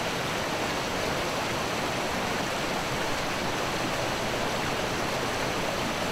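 A rocky river rushing steadily over boulders and through rapids.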